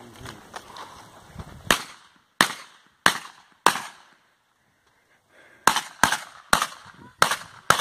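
Nine gunshots: four evenly spaced shots about two-thirds of a second apart, a pause of about two seconds, then a faster string of five.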